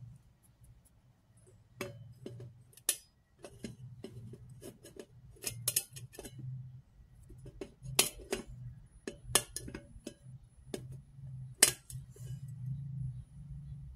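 Fingernails clicking, tapping and scraping on a metal dish as head lice are dropped and pressed onto it: irregular sharp clicks, a few of them much louder, over a low steady hum.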